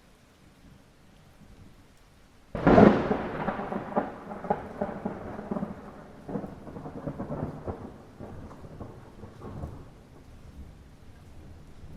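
Light rain falling steadily, broken about two and a half seconds in by a sudden thunderclap. The thunder then rumbles on in uneven rolls, fading over several seconds and swelling again near the end.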